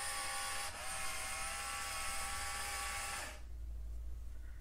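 LEGO Technic Control+ electric motor whining through its plastic gear train as the Liebherr R 9800 model's turntable is driven in the app's build test. The pitch dips briefly less than a second in, and the whine stops a little over three seconds in.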